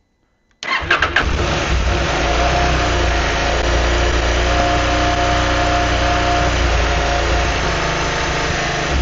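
A KTM 790 Adventure S's parallel-twin engine is started on the electric starter about half a second in: a brief crank, then it catches and settles into a steady, even run.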